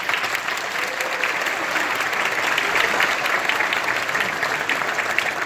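Audience applauding, many people clapping together at a steady level.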